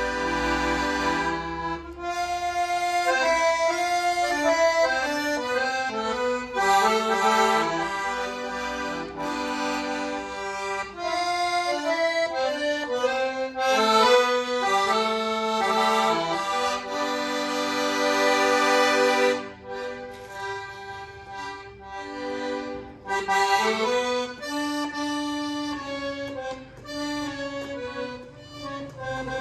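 Solo accordion playing a tune: a melody over sustained bass notes, getting noticeably softer about two-thirds of the way through.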